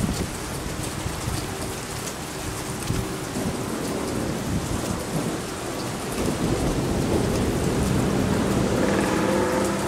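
Rain falling steadily during a thunderstorm, with thunder rumbling that swells from about six seconds in.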